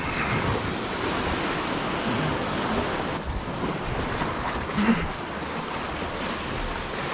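Sea waves washing and breaking against a rocky shore, a steady rushing noise, with some wind on the microphone. About five seconds in there is a brief short pitched sound.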